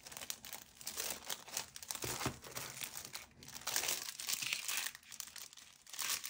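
Clear plastic cellophane bag crinkling in the hands, on and off with brief lulls, as it is picked at to find where the sealed bag opens.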